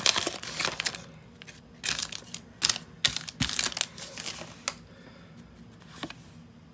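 Foil wrapper of a Pokémon booster pack crinkling as the pack is torn open and the cards are pulled out, dense for about the first second. After that come scattered short rustles and snaps of the cards being handled and shuffled.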